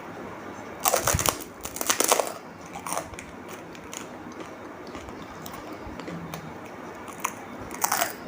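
A person biting into and crunching a crisp fried snack. There are loud crunches about a second in and again near two seconds, a smaller one around three seconds, and another crunch near the end.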